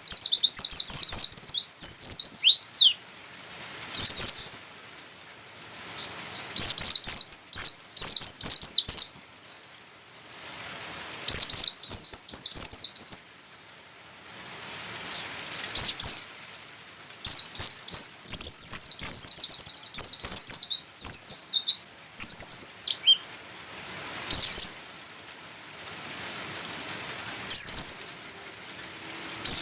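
Oriental white-eye (pleci buxtoni) singing vigorously: bursts of rapid, high, twittering trills and chirps lasting a second or two each, separated by short pauses.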